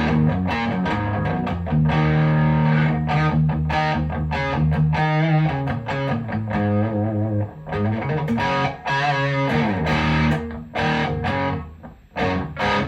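Distorted electric guitar played through a Marshall DSL40CR tube combo amp: strummed chords and chugging riffs, with a couple of brief pauses.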